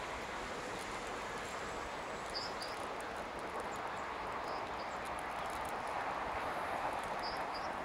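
Steady hum of distant city traffic, with a few short high bird chirps in pairs, about two and a half seconds in, near the middle and near the end.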